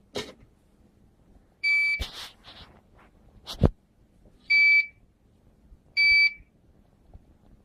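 Hakko FX951 soldering station's buzzer giving three short, high beeps about a second and a half apart, with a few sharp clicks and knocks between them.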